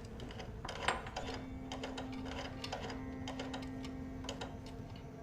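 A steady low hum that sets in about a second in, under scattered light clicks and ticks at irregular intervals.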